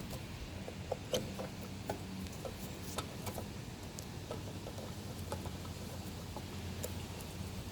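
Scattered light clicks and taps from handling over a steady low hum, with the sharpest click about a second in.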